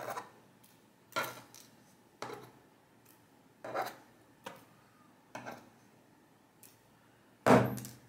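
Small metallic clicks and taps, about one a second, as steel tweezers work the last pin springs out of a Winkhaus keyTec dimple-lock cylinder housing and set them down in a parts tray. The loudest knock comes near the end.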